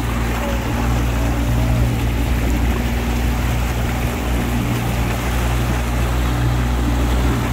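Motorboat engine running steadily under way, a low even hum, with water churning and rushing in the wake.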